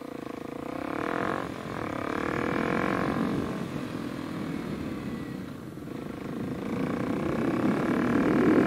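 Kawasaki KLX300 single-cylinder four-stroke engine, breathing through a new Delkevic carbon slip-on exhaust, pulling away and accelerating through the gears. Its pitch climbs, drops at a gear change about a second and a half in, climbs again, dips at another shift around six seconds, and rises louder near the end.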